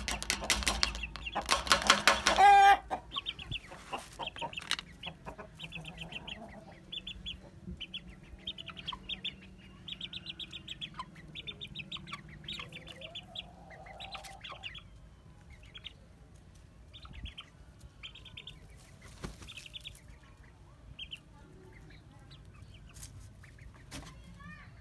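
Chickens squawking and flapping as they are let out of a coop, loud for the first two or three seconds. Then a long run of short, high chirps in quick groups, with a few clucks, fading out after about halfway.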